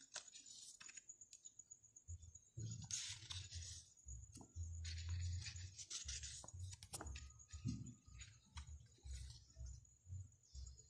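Packaging being handled by hand: two short bursts of rustling, about three and five seconds in, with scattered clicks and soft knocks in between, over a faint steady high whine.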